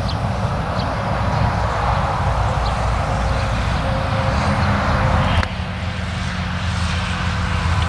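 Two Claas Lexion combine harvesters running while threshing grain: a steady deep engine drone under the rush of the threshing and cutting gear. About five seconds in, the higher rushing part of the sound drops off abruptly.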